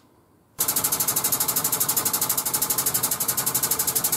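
Air-over-hydraulic bottle jack's air pump chattering rapidly at about fifteen strokes a second as it jacks up under a pickup truck's frame. It starts about half a second in.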